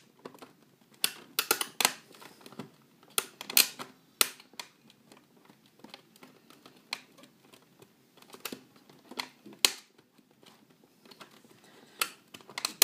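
Irregular clicks and taps of plastic disc packaging being handled, a few sharper snaps among them.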